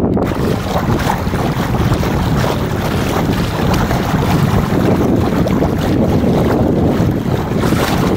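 Wind buffeting the microphone over water rushing and splashing along the hull of a Yamaha 25 MkII sailboat under way in a good breeze.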